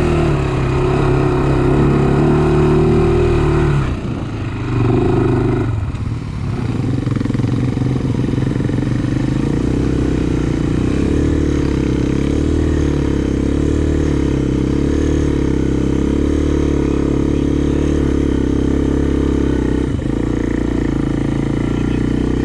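Honda sport ATV engine running steadily under throttle. The sound dips briefly about four seconds in and again about six seconds in, then runs steady again.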